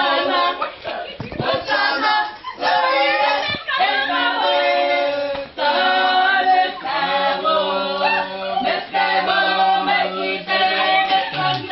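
A small group singing together unaccompanied, several voices holding long notes in a cappella style.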